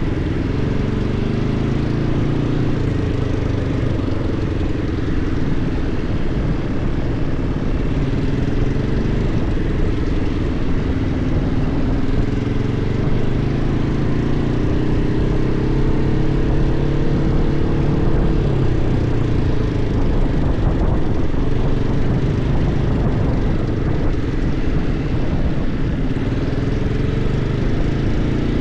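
ATV (quad bike) engine running under way on a dirt track, heard close from the rider's seat, its pitch rising and falling as the throttle changes.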